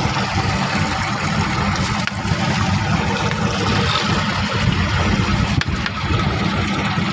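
Fishing boat's engine running steadily, with strong wind buffeting the microphone.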